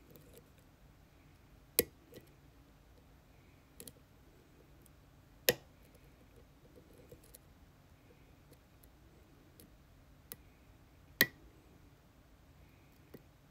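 Sharp little metallic clicks from a pin-tumbler challenge lock being picked, three loud ones a few seconds apart with weaker clicks and faint ticks between, as the pick and tension wrench work the pins.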